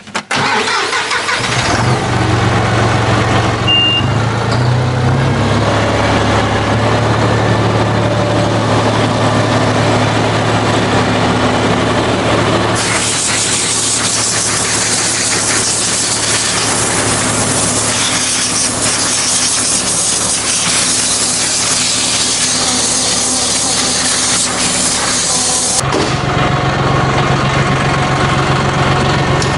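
John Deere 5075E tractor's diesel engine cranking and catching, running a little faster for a couple of seconds, then settling to a steady idle. About halfway through, compressed air from a blow nozzle starts hissing over the idle as it blows dust out through the radiator, and cuts off sharply near the end.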